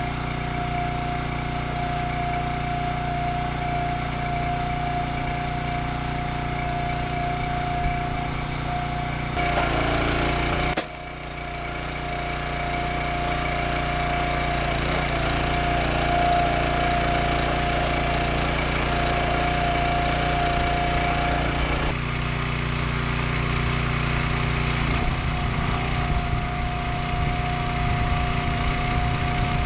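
Engine of a log-splitting rig running steadily, with a steady high whine over it, as hickory logs are split. About ten seconds in the sound swells briefly, then drops sharply for a moment and builds back up.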